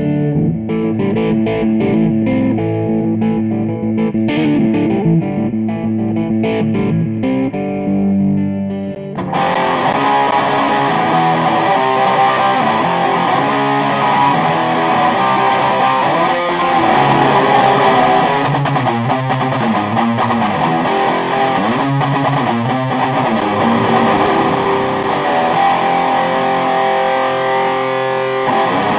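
Electric guitar played through a distorted Mesa/Boogie tube amplifier. For about the first nine seconds it plays a darker part with separate picked notes. It then switches suddenly to a brighter, thicker distorted sound.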